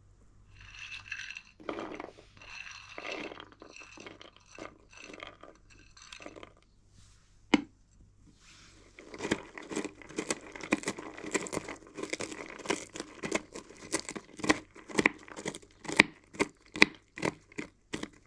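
Knife chopping walnuts and figs on a cutting board: a quick, even run of crunching strokes, several a second, over the second half. Before it come scattered rustling sounds and one sharp click.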